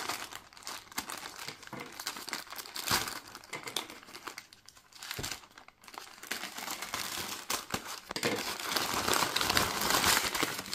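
Plastic parcel packaging crinkling as it is handled and opened by hand. It goes quieter for a moment in the middle, and the crinkling gets busier and louder over the last few seconds.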